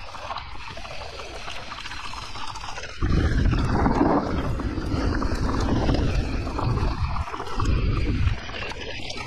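Wind rumbling over the microphone of a camera riding on a mountain bike, over the steady noise of the ride. The rumble turns much louder about three seconds in, dips once and falls back near the end.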